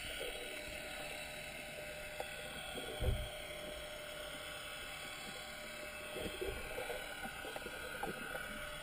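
Underwater sound muffled through a GoPro's sealed dive housing: a steady hiss of water with scattered soft knocks, and one louder low thump about three seconds in.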